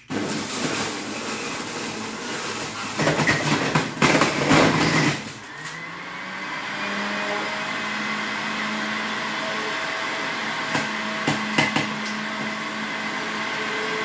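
Electric juicer switched on and running, its motor loaded as pineapple and lime are pressed down the feed chute, with a louder, rougher stretch for a couple of seconds. Then the motor runs on with a steady hum that rises a little in pitch and holds, with a few short knocks near the end.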